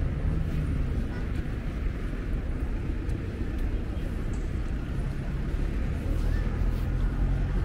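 Street ambience: a steady low rumble of road traffic, with passers-by talking faintly.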